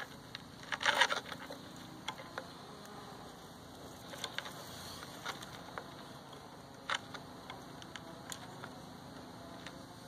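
Handling noise from copper electrodes being bent together by hand: a quick cluster of scraping clicks about a second in, then scattered light clicks and taps.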